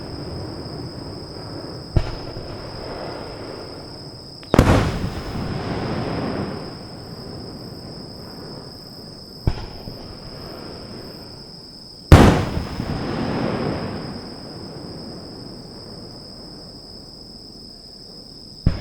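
Aerial fireworks shells bursting: four sharp bangs, the second and last much the loudest, each big burst trailing off in a rumble lasting a couple of seconds.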